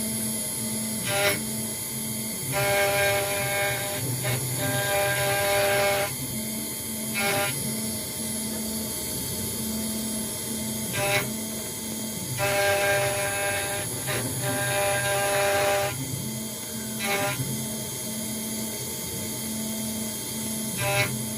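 CNC router's axis motors whining as the machine moves in repeated runs of a few seconds, each run starting and stopping with a click, over a steady low hum.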